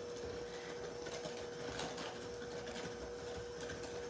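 Electric hand mixer running steadily, its beaters whirring through instant vanilla pudding and milk, with a constant motor hum at one even pitch.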